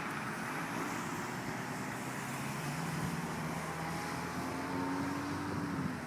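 Truck engine running steadily over a noisy background; its pitch steps up about four seconds in and eases slightly near the end.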